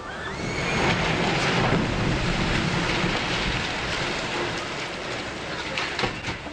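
Rumbling roar of concrete and debris crashing down as the lower part of a building is pulled down by hydraulic demolition. It swells about a second in and keeps rumbling, with a short rising tone at the very start.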